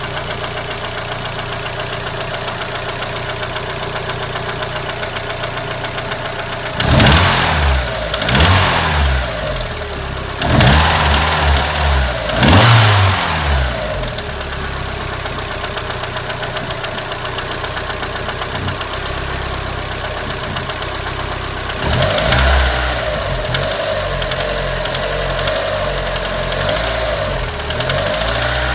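Car engine idling, blipped up in revs several times about a quarter of the way in and once more later. It makes a noise the owner calls bad and nasty.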